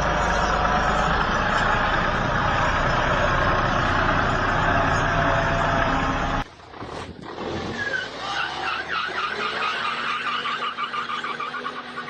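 A heavy vehicle's engine running loudly and steadily, cut off abruptly about six and a half seconds in. After the cut, quieter sound with rapid, repeated short high notes.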